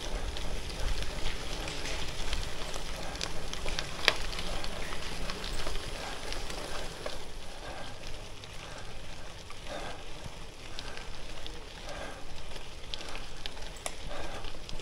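Gravel bike tyres rolling over a loose gravel road: a steady crackling crunch with many small ticks of stones. A low wind rumble on the microphone eases off about halfway through.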